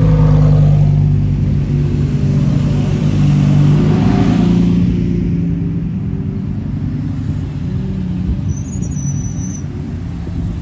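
Several Lamborghini supercar engines running at low speed as a line of the cars rolls slowly past, a deep steady drone. It is loudest in the first half and fades after about five seconds.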